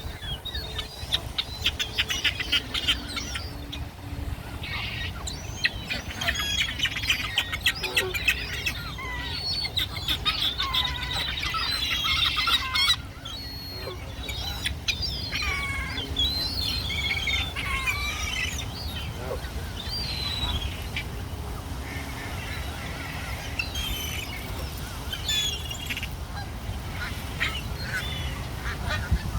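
A flock of birds calling over one another, with dense overlapping calls and chattering, busiest in the first half, over a steady low rumble.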